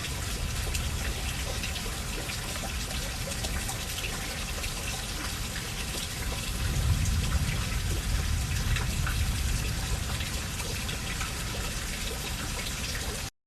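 Steady rain pouring down, with scattered drips ticking through it. A low rumble swells for a few seconds in the middle, and the sound cuts off abruptly near the end.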